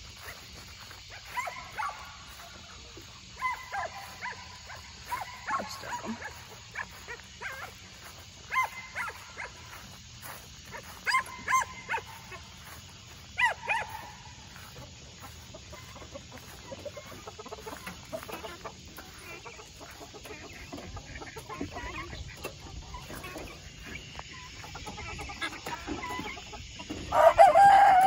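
A flock of French Black Copper Marans chickens and guinea fowl calling as they settle in to roost: a string of short calls in the first half, then a loud, drawn-out call falling in pitch near the end.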